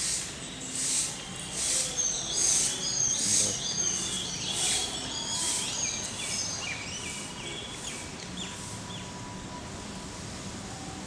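Birds chirping and calling in a rapid run of short high notes, over a soft hiss that pulses a little more than once a second and fades out past the middle.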